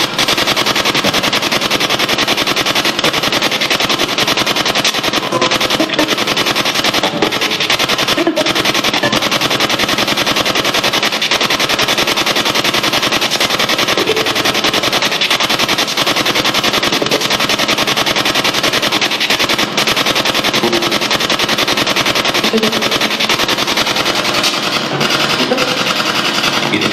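SB7 spirit box, with its telescopic antenna extended, sweeping rapidly through radio frequencies: a loud, steady rush of static chopped many times a second, with snatches of radio breaking through.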